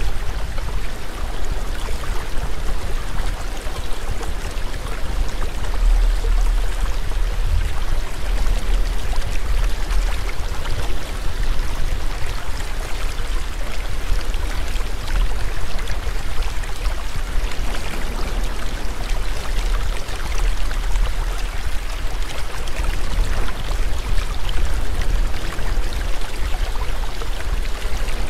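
Steady rushing noise like flowing water, a stream-like ambience with a deep rumble underneath.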